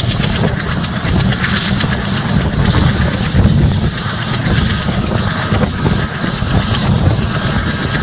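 WDM-3A ALCO diesel locomotive hauling a passenger train, heard from on board while under way: a steady low engine rumble under an even rushing noise of the running train.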